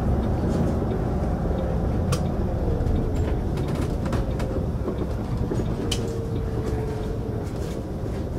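City bus driving, heard from the driver's seat: a steady engine and road rumble with a faint whine, and a few sharp clicks or rattles. The rumble eases slightly near the end as the bus slows into a roundabout.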